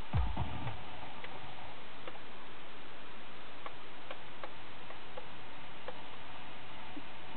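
Blaupunkt Twinceiver car radio, with the station's music cutting off as it is tuned away, then a steady hiss of poor FM reception on a weak frequency. A few faint, irregular clicks come through the hiss as the radio's buttons are pressed.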